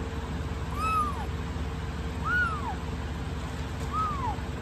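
Young kitten mewing three times, each a short high call that rises and falls in pitch, about a second and a half apart, over a steady low hum.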